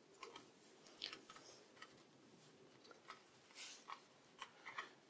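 Faint, scattered metallic clicks and light scraping from an old sliding-spindle bench lathe headstock as its spindle is turned by hand. The star nut rides the thread template and draws the spindle forward, the thread-copying motion.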